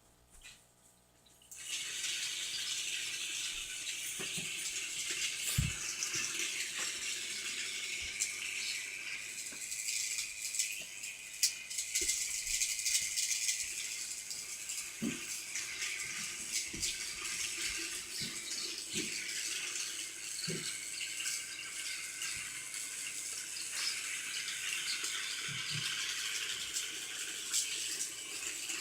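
Toy train engine switched on about a second and a half in, then running steadily with a constant high rattle of its motor and wheels on the track, with scattered clicks and knocks.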